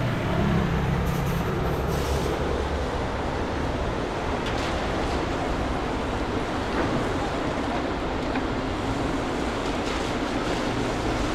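City street traffic at an intersection: a heavy diesel vacuum truck pulls across with a low engine rumble that is strongest for the first couple of seconds, then a steady wash of cars driving past.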